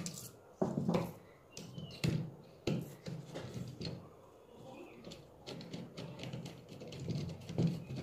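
Irregular knocks and clicks of plastic contactors and a wire being handled and pressed on a tabletop while the A2 coil terminals are jumpered together, with lighter ticking between the louder knocks.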